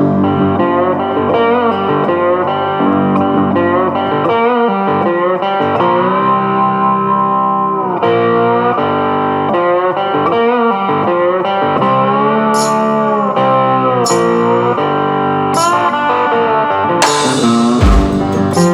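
Background music led by electric guitar, with drum hits near the end.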